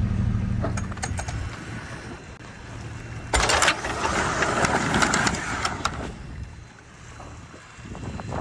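A boat's engine runs with a steady low hum that fades out after the first second or two, with a few light clicks. About three seconds in a sudden loud rushing noise starts, lasts nearly three seconds and then eases off.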